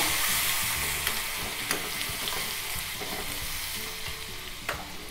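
Ginger and curry leaves sizzling in hot oil in a stainless steel kadai, being stirred with a spoon that knocks lightly on the pan a few times. This is a tempering (tadka) for pongal, and the sizzle gradually dies down.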